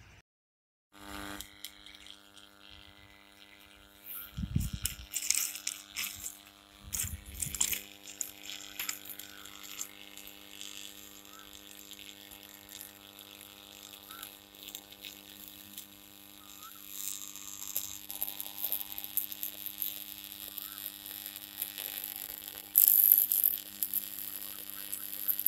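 Electric arc at a rail joint buzzing with a steady hum and crackling, with a short louder hiss near the end. It is traction current jumping across a loosely fitted bond cable on an electrified railway line.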